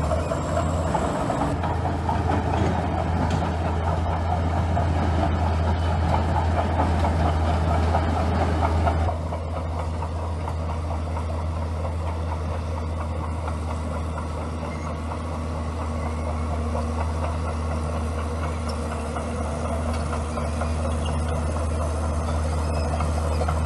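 Komatsu bulldozer's diesel engine running steadily, working harder for the first nine seconds or so and then easing to a slightly quieter, even run.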